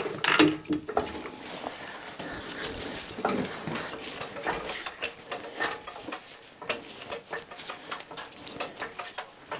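Hydraulic floor jack being pumped with its long handle to lift the car by the suspension, giving a run of light, irregular metallic clicks and knocks.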